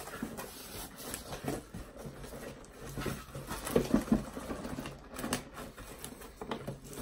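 Cardboard shipping box and its packing material being handled and pulled apart by hand: rustling, scraping and scattered soft knocks, with a few louder knocks near the middle.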